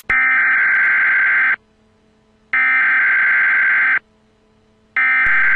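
Emergency Broadcast System alert tone: a steady electronic beep sounding three times, each about a second and a half long, with about a second of silence between.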